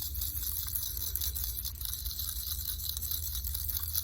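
Small metal springs jingling and rattling inside a closed tube as it is shaken, a kind of quiet sound of many small light ticks.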